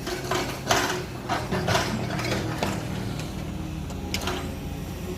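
Irregular scraping strokes, several a second, as a truck wheel hub and brake drum are cleaned by hand, over a steady low hum. The strokes thin out after about three seconds, with one more burst just past four seconds.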